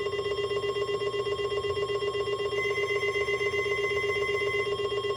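NOAA Weather Radio warning alarm tone, the steady 1050 Hz test signal, sounding through a weather radio receiver over a rapidly pulsing lower buzz.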